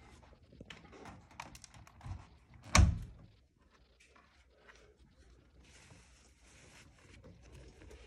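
Front-loading washing machine door unlatched and pulled open, with a single sharp thunk about three seconds in, among quiet clicks and handling noises.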